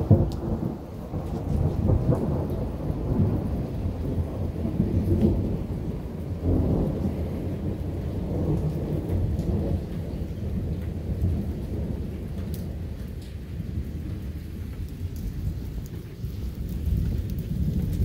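Long, low rumble of thunder that swells and fades several times.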